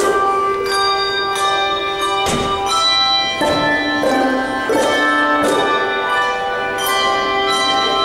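A handbell choir ringing a piece: chords of handbells struck in a steady succession, about one every three-quarters of a second, each chord ringing on into the next.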